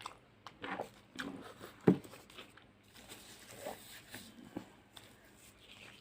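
Close-up eating sounds of spicy fish curry with rice: wet chewing and lip smacks in short, irregular clicks, with one louder knock about two seconds in.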